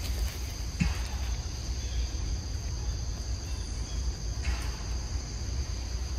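Steady high-pitched insect drone on two steady tones, over a low rumble, with brief rustles about a second in and again near four and a half seconds.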